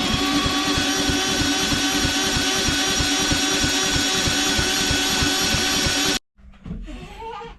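Walk-behind lawn mower's small engine catching with a quick rise in pitch, then running loud and steady with a fast pulsing beat for about six seconds before it stops abruptly.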